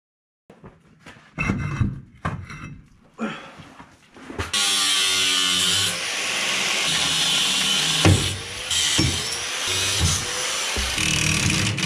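Cordless impact wrench rattling off wheel lug nuts in a few short bursts, then an angle grinder cutting steel on the truck's rear leaf-spring mount, running loud and steady.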